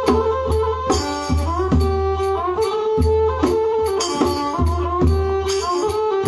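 Kantrum mahori ensemble playing live: a sliding, sustained fiddle-like melody over a steady drum beat of about two to three strokes a second.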